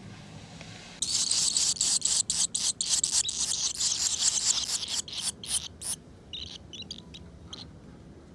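Barn swallow nestlings begging: a sudden chorus of high, rapid chirping that starts about a second in and stops around six seconds, followed by a few fainter chirps.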